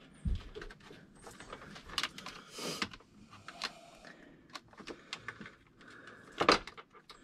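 Scattered small metal clicks and clinks of battery cable ring terminals and nuts being handled and fitted onto the negative posts of marine batteries, with a sharper knock about six and a half seconds in.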